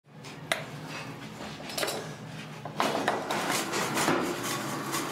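Sharp metal clanks and knocks, about four distinct ones and then a denser clatter in the last two seconds, from a steel mould on a press being handled, over a steady low hum.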